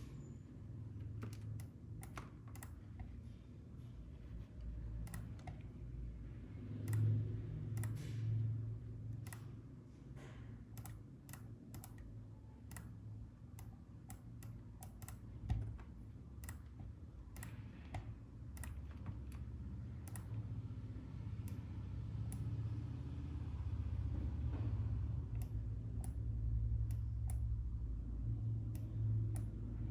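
Scattered, irregular clicks of a computer keyboard and mouse, over a steady low hum.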